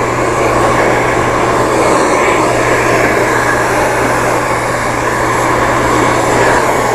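Hand-held hair dryer running steadily while blow-drying hair: a loud, even rush of air over a constant low hum from its motor.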